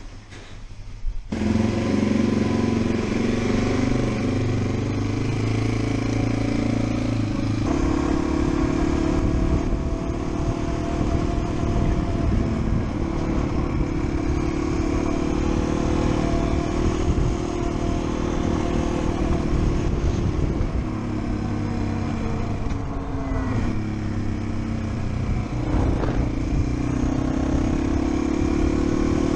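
Yamaha TW200's single-cylinder four-stroke engine running under way, with wind rushing over the helmet camera. It starts abruptly about a second in and holds fairly steady; its pitch drops about three quarters of the way through, then climbs again near the end.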